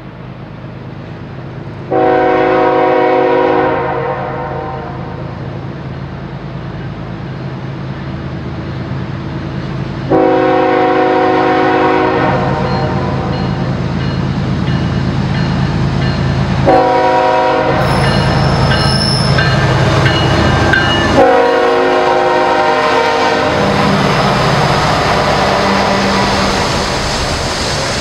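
Freight train led by BNSF diesel locomotives sounding its multi-tone air horn in the grade-crossing signal: two long blasts, one short, then a final long one, over diesel engine noise that grows louder as the train approaches. Near the end the locomotives pass and the wheels of the hopper and tank cars run by.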